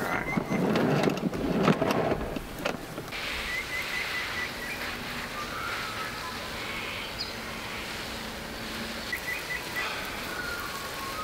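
Garden hose being dragged off a hose reel, with rattling and knocks for the first couple of seconds. Then a steady outdoor hiss, with a bird chirping a quick run of short notes twice.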